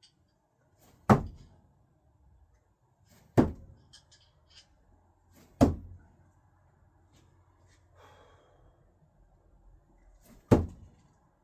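Four sharp thunks of no-spin thrown screwdrivers striking the target, the first three about two seconds apart and the last after a longer pause.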